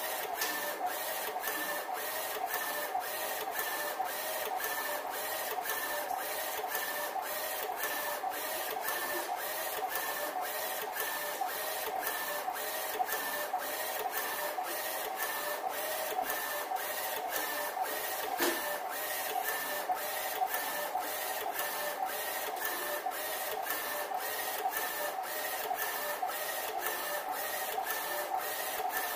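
UV flatbed printer with a roller attachment printing on cylindrical bottles: the print-head carriage and drive motors run with a pulsing hum and a regular tick about twice a second. A single sharper click comes about two thirds of the way through.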